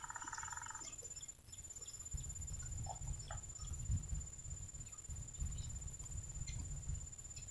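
Low rumble on the microphone from about two seconds in, with scattered faint clicks. A short rattling trill sounds at the very start, and a faint steady high whine runs underneath.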